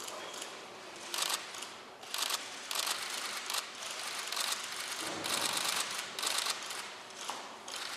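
Camera shutters of press photographers clicking in rapid, overlapping bursts. Clusters of loud volleys come about a second in, around two to three and a half seconds in, and again around five to six and a half seconds in.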